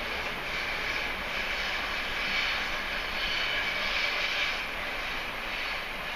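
Electric locomotive-hauled passenger train pulling away, a steady running noise with a high whine that swells a couple of seconds in and then eases as the train draws off.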